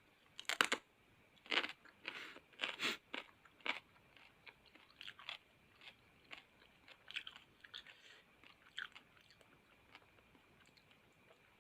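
A person biting into and chewing raw rujak fruit. A few loud crunching bites come in the first four seconds, then quieter chewing that thins out.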